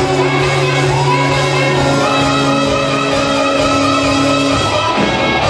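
Live band music played loud in a large hall, with long held notes and a voice singing or shouting over them; the held notes break off briefly near the end.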